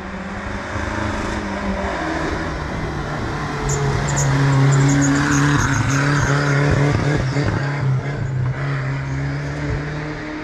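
Off-road race vehicle's engine running under power as it comes up a gravel forest road. It grows louder about four seconds in and eases off near the end.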